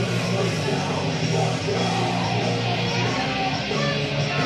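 Background rock music with electric guitar, playing steadily.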